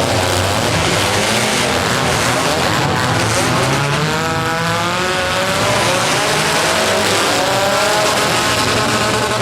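Several economy compact demolition derby cars' engines revving together, their pitches rising and falling over one another, with tyres squealing and skidding on the dirt.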